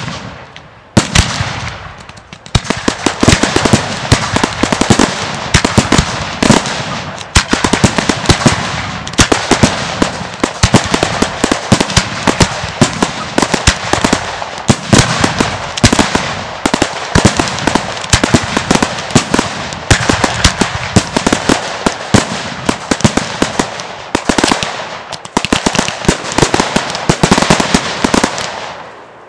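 Aerial fireworks display: a dense, almost unbroken run of shell bursts and rapid pops, with louder bangs scattered among them. It builds about two seconds in and thins out near the end.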